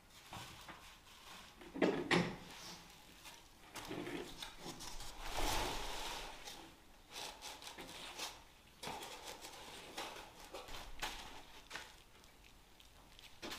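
Rigid foam insulation boards being handled and fitted on a floor: foam rubbing and scraping, with two sharp knocks about two seconds in and a longer scrape about halfway through.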